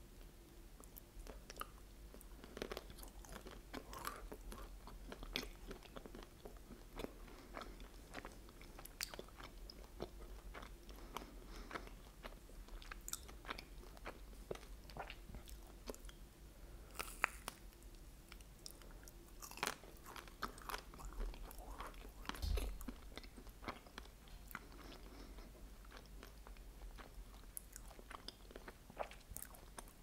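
Close-miked biting and chewing of a chocolate-glazed ice cream bar on a stick, with many small crackling clicks as the chocolate shell breaks. One heavier thump comes about two-thirds of the way through.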